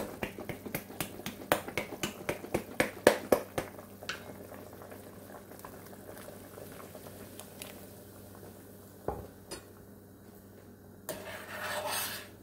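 Flour and milk shaken hard in a lidded glass jar: a rapid series of sharp knocks and sloshes, about four a second, for the first four seconds. After a quiet stretch and a single thump, a spoon scrapes and stirs in a stainless steel stockpot of stew near the end.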